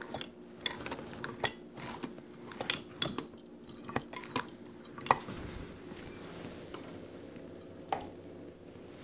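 Small metal carburetor parts clicking and ticking under the fingers as the choke linkage of a Holley 4160 carburetor is worked on. The clicks come thick in the first few seconds, with one more near the end, over a faint steady hum.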